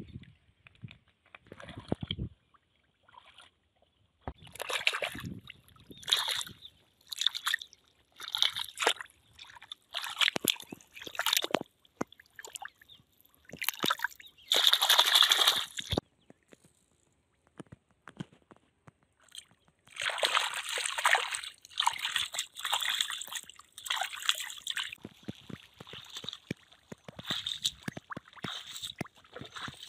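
Hands sloshing and squelching through shallow, muddy pond water in irregular bursts, feeling in the mud for snails. Toward the end come splashing steps of wading through the shallow water.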